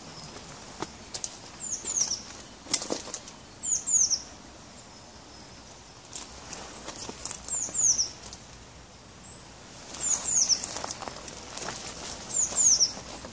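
Footsteps crunching and rustling through dry grass and undergrowth beside a railway track, while a small bird repeats a high double chirp, two quick falling notes, every two to three seconds.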